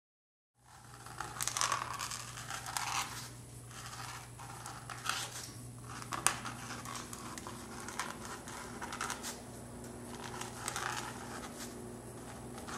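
Paint marker scratching across a paper-collaged panel in short, irregular strokes as a signature is written, with louder rustling handling noise near the start, over a steady low hum.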